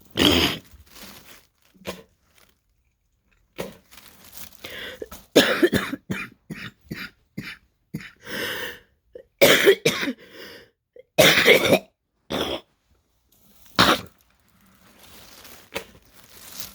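A woman's repeated wet, phlegmy coughing fits during an asthma flare-up: a dozen or so coughs in clusters with short pauses between them, hardest about ten seconds in, as she tries to cough up phlegm.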